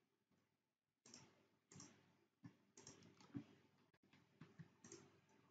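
Near silence with a few faint computer mouse clicks, spaced about half a second to a second apart.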